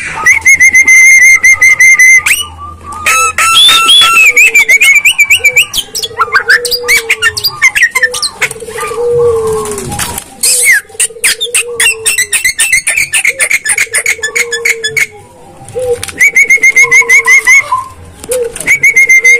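Caged Javan myna (jalak kebo) singing a loud, varied song: fast repeated high trills, rapid clicking chatter and lower warbled notes, with brief pauses between phrases.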